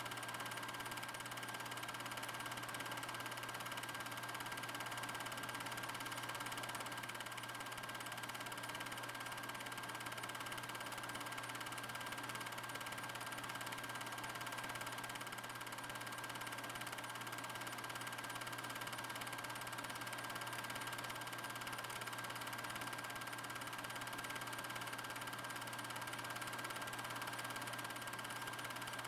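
Steady, unchanging hum with a faint constant whine and hiss, with no aircraft or other events in it.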